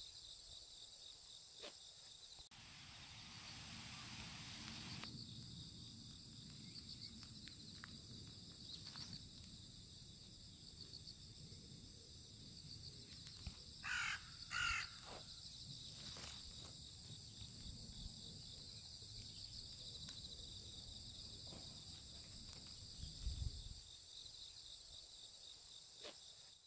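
Steady chorus of insects trilling, with a crow cawing twice in quick succession about halfway through.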